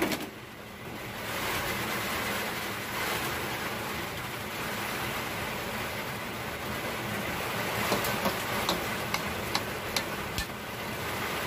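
Kangkong (water spinach) leaves sizzling in hot oil in a frying pan, a steady hiss that swells about a second in. A few sharp clicks near the end.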